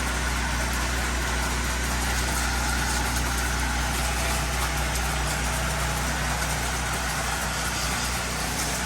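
Small gasoline engine on a soft-wash roof pump running steadily at an even speed, a low hum with a constant hiss over it.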